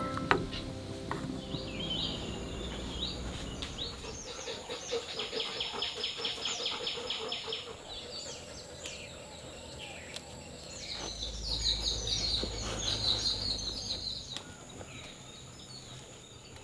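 Wild birds singing in rapid, high trilled runs of notes, in two bouts with a gap in between. Music fades out in the first two seconds, and a low rumble sits under the second bout.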